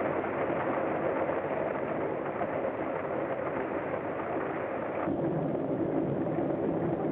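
Steady mechanical running noise of a vehicle on an early sound-film track, changing abruptly about five seconds in to a lower engine drone.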